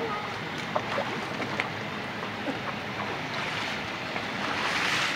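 Water splashing and sloshing as a person swims and crawls on his belly through shallow floodwater, growing louder about four and a half seconds in.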